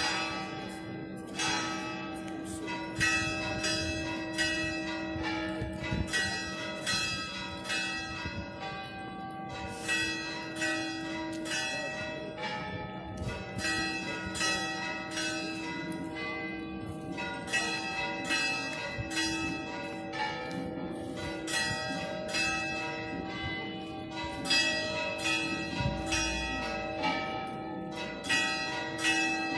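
Church bells ringing in a continuous peal, struck about two or three times a second, with their tones overlapping.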